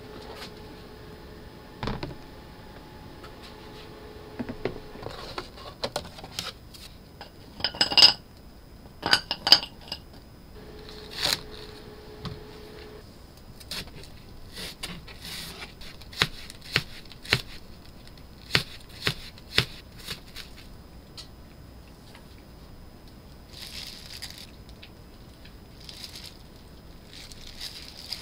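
Food prep at a table: dishes, glass and containers set down and handled with clinks and knocks. About halfway through, a knife chops a green onion on a plastic cutting board in a run of evenly spaced sharp taps. Near the end comes soft handling noise as kimchi is mixed by a gloved hand in a glass bowl.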